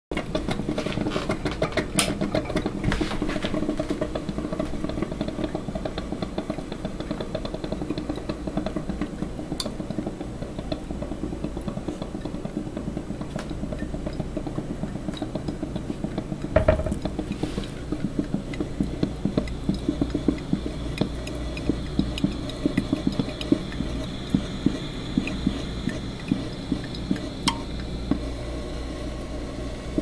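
Drip coffee maker brewing: water gurgling and sputtering into the glass carafe with irregular small pops, over a steady low hum. A single louder knock comes just past the middle.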